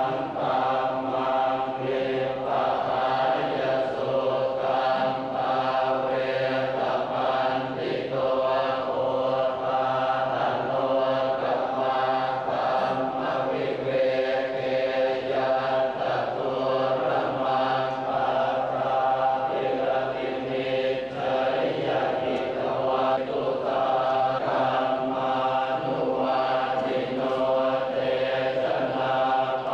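Buddhist monks chanting in unison from their chant books. The men's voices hold a steady, near-constant pitch in an unbroken rhythmic recitation.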